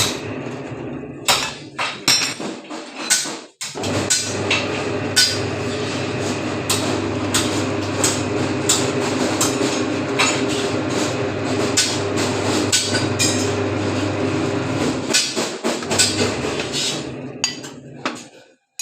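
Bar bending machine for iron square bar running with a steady motor hum, over which come many sharp metallic clanks and knocks. The sound drops out briefly about three and a half seconds in and again near the end.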